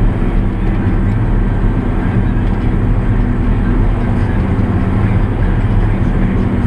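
JCB Fastrac 8310 tractor's six-cylinder diesel engine running steadily at road speed, heard from inside the cab with the drivetrain and tyre noise of driving on tarmac.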